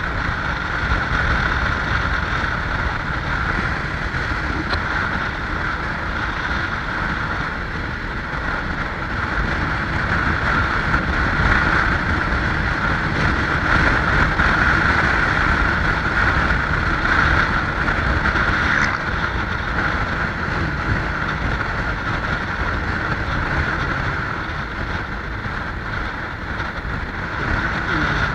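Steady rush of wind and engine and road noise from a motorcycle on the move, swelling slightly in the middle.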